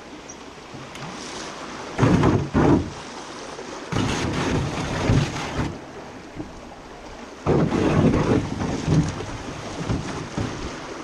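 Aluminum canoe running a rapid: rushing river water with three loud bursts of splashing and wind buffeting the microphone.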